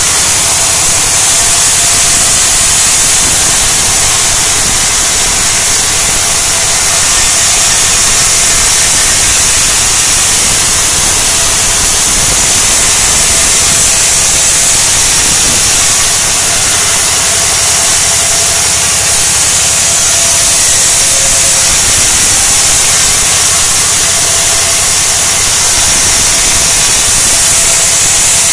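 Large sawmill band saw running and ripping dry sengon (Falcataria/Albizia) slabs into boards. The blade makes a loud, steady, high-pitched rushing noise through the wood.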